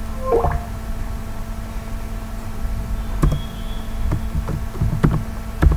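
A few scattered computer keyboard keystrokes, single clicks in the second half, over a steady low hum and rumble of background noise.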